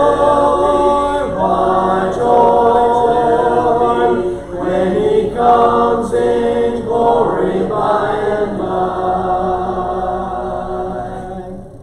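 Congregation singing a hymn a cappella, no instruments, several voices in harmony: the closing line of the chorus, with the last note held and then dying away near the end.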